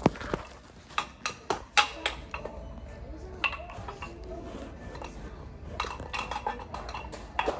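Giant plastic floor-chess pieces clacking as they are knocked together, picked up and set down: a scatter of sharp clicks and clinks, busiest about a second in and again near the end.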